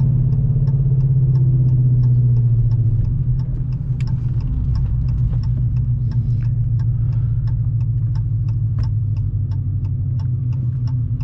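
Dodge Challenger Scat Pack's 6.4-litre Hemi V8 running at low speed with a steady low rumble that eases a little about three seconds in. Over it, even light clicks tick about three times a second, like a turn-signal indicator.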